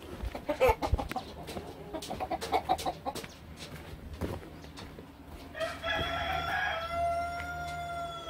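A rooster crowing once: a long call beginning about five and a half seconds in, held steady and falling in pitch at its end. Before it, a quick run of short clucks mixed with sharp knocks and clicks.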